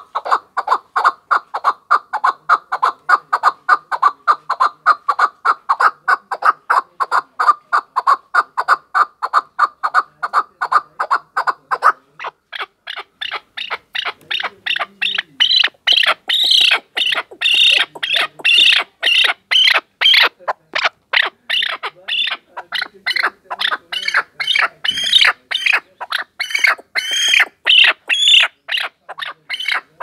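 Caged chukar partridge calling: a long, rapid run of short repeated clucking notes. About twelve seconds in, the notes turn higher-pitched and louder and keep going.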